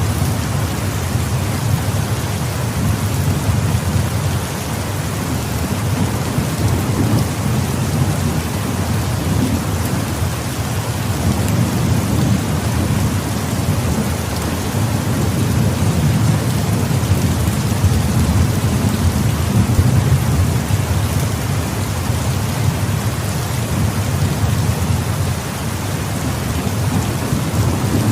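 Steady heavy rain with low rolling thunder rumbling underneath throughout, the rumble swelling and easing several times without any sharp crack.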